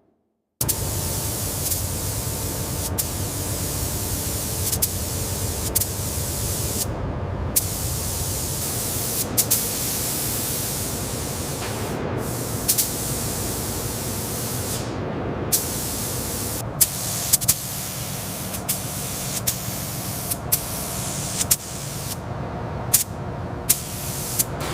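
Steady, loud hissing noise with sharp clicks scattered through it and a few brief dips in the hiss. It starts abruptly about half a second in.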